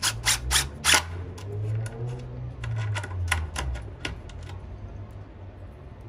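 Cordless DeWalt impact driver driving screws into a wooden board: its motor runs in short spurts under a string of sharp clicks, loudest in the first second. The clicking stops after about four and a half seconds.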